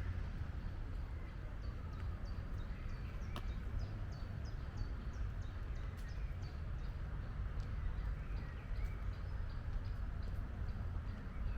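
Forest ambience: small birds giving short high chirps, a couple a second, over a low steady rumble.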